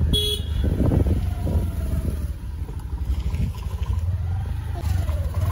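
A motorized two-wheeler being ridden, heard from the pillion seat: its engine runs with a steady low rumble under road noise.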